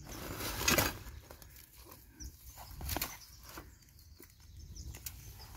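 Rustling and scraping as a wire-mesh fish trap is handled among dry grass, with a louder rustle just under a second in and a few sharp clicks later.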